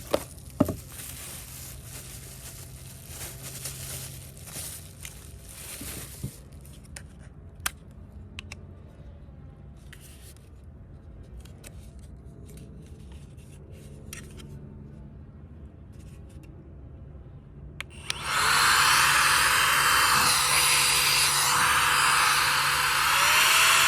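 Rustling and small clicks of plants being handled, then about three quarters of the way through a cordless electric air duster switches on: a loud steady rush of air, its motor whine rising in pitch near the end as the speed is turned up.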